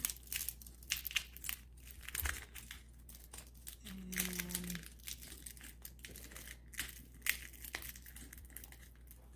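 Stiff iridescent plastic sheet being folded and pressed into a metal purse frame, making short irregular crackles and clicks.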